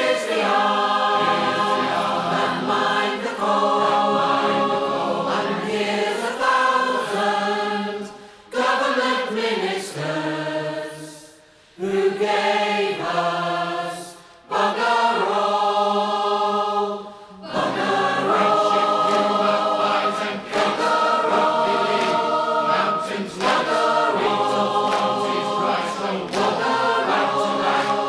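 Large mixed choir singing words in harmony, with a few short breaks between phrases in the middle.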